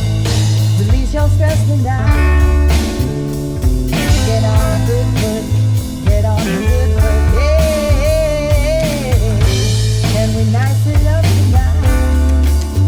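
Band music with bass, drum kit and guitar playing a steady groove, with a wavering sung or lead-guitar melody line about halfway through.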